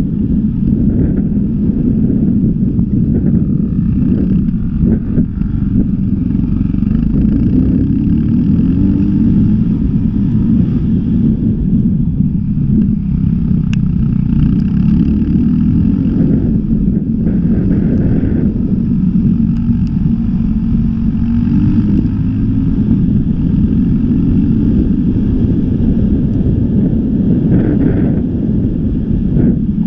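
Engine of a motor vehicle travelling along a dirt track, running steadily with small rises and falls in pitch, heard from on board.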